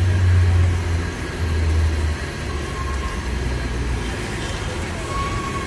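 Low engine rumble of road traffic, loudest in the first two seconds, over a steady sizzle of onion bhaji batter frying in a wide kadhai of hot oil.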